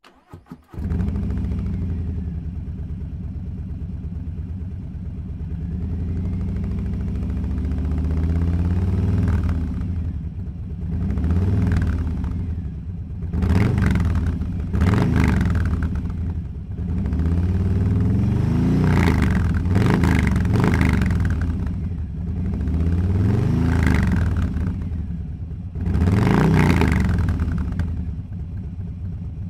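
Harley-Davidson Low Rider S's V-twin engine through Zard 'Avio' Racing slip-on mufflers. It idles steadily at first, then is revved about eight times from a little under ten seconds in, each rev rising in pitch and falling back to idle.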